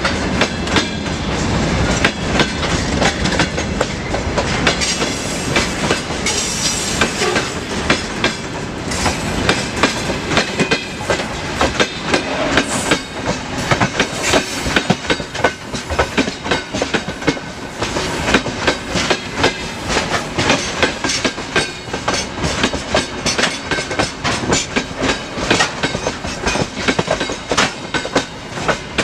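Freight train wagons rolling past, their wheels clicking in a steady, dense run over the rail joints.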